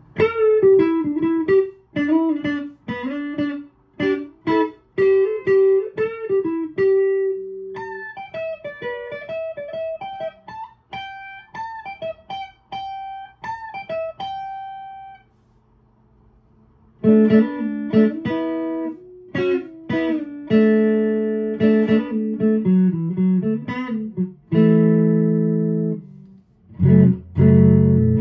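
Fender Player Telecaster electric guitar on its Seymour Duncan neck pickup, played clean through a Boss Katana amplifier's clean channel: single-note lead lines with string bends, a short pause about 15 seconds in, then fuller chords and double-stops.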